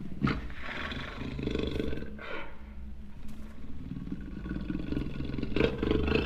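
Jaguar roaring in a series of calls over a steady low rumble: a short call at the start, a longer one about a second in, and a louder one building near the end.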